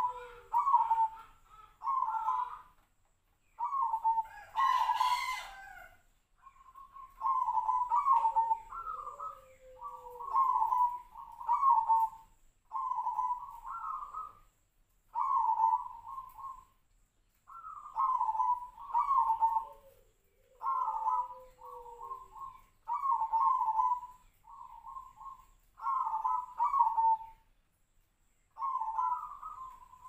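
Caged zebra dove (perkutut) cooing: short rolling phrases of quick coos repeated every second or two, some rising in pitch at the end. A lower, falling call sounds twice, and about five seconds in there is a brief, harsher noisy sound.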